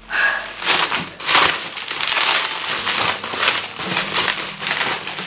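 Plastic bubble wrap crinkling and rustling in irregular handfuls as it is pulled and peeled off a plastic bottle.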